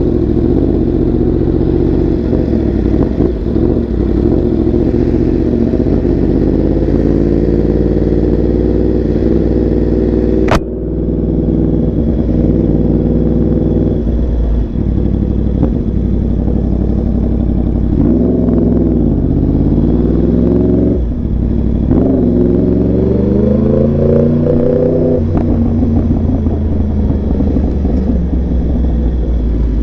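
Sport motorcycle engine running at low revs while the bike rolls slowly. Its pitch dips and climbs a few times as it revs between about 18 and 25 seconds in. A single sharp click comes about ten seconds in.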